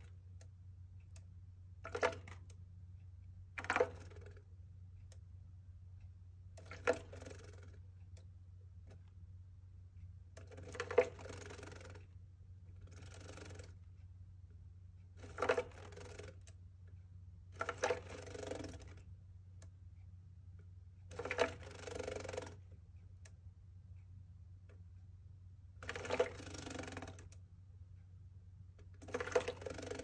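A Java sparrow splashing in a covered plastic bird bath: about ten short bouts of wing-fluttering in the water, with droplets spattering on the plastic hood, separated by pauses of a few seconds.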